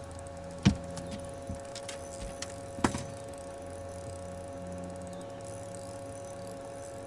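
Two sharp knocks on a bass boat's deck, one just under a second in and a louder-looking one near three seconds in, with a few lighter clicks, over a steady hum whose low part drops away about three and a half seconds in.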